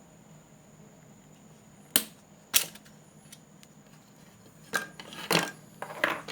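A few sharp clicks and knocks of hard objects being handled: two about two seconds in, half a second apart, then a quicker cluster near the end.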